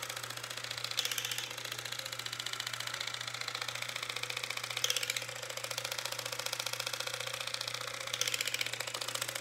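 Nu Skin LumiSpa facial cleansing device running with its silicone head on wet, cleanser-covered skin: a steady low electric buzz with a fast, even rattling pulse. It briefly grows louder and brighter three times.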